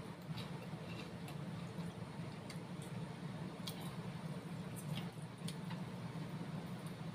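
Eating sounds: chewing and slurping bakso meatball soup, with scattered light clicks of a metal spoon and fork against the bowl, over a steady low hum.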